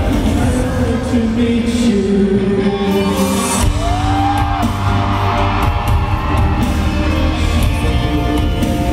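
Live pop music with a male singer's voice over a heavy bass beat, coming through a large arena's sound system and recorded from among the audience. The bass drops out for a moment about three seconds in, then comes back.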